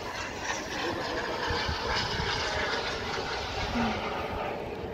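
Radio-controlled model aircraft flying overhead: a steady rushing engine noise that grows louder through the middle and eases off near the end.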